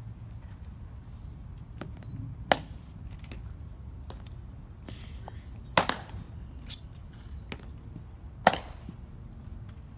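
Steel-tapped heels of Tomb Guard sentinels' shoes striking the stone plaza in sharp, single clicks as the guards step and halt. Three loud clicks come about three seconds apart, with fainter steps between them, over a low steady background rumble.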